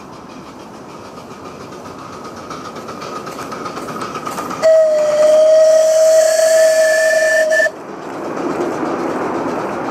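Miniature live-steam locomotive hauling a freight train, its running noise growing louder as it approaches. About halfway through, its whistle blows one steady note for about three seconds and cuts off sharply, then the train's rolling noise goes on as it passes.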